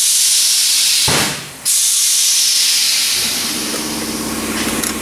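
A loud, steady hiss, broken off briefly about a second in; a low hum joins it after about three seconds.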